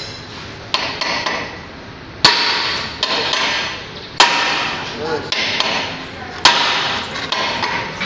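Hammer blows on the steel S-valve (rock valve) of a concrete pump as it is being dismantled, each strike followed by a short metallic ring. Three heavy blows come about two seconds apart, with lighter strikes between them.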